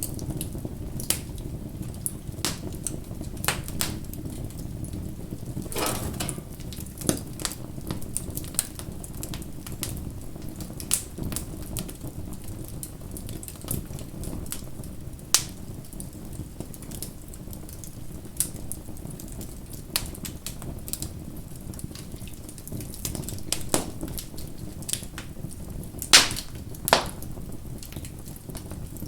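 Wood bonfire crackling: a steady low rush of burning under irregular sharp snaps and pops, with a louder pop about six seconds in and two more near the end.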